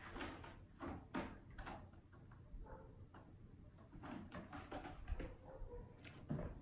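Kitten's claws scratching and catching on a sisal-rope cat tree post as it climbs and paws at the yarn and fabric strips. The sound is a string of irregular light scratches and soft knocks.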